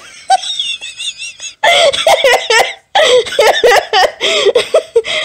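People laughing: first a faint, high, wavering giggle, then louder, choppy laughter from about a second and a half in, breaking off briefly near three seconds.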